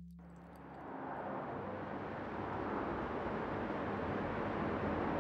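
Road noise of a moving car fading in and growing steadily louder, heard from inside the car: a steady rush of tyres and engine over a low hum.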